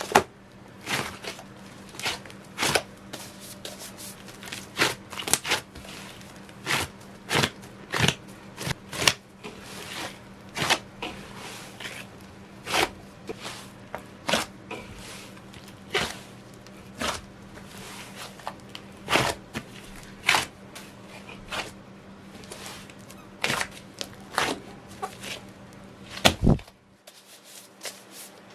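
Slime kneaded by hand, with sharp, irregular clicks and pops about one or two a second.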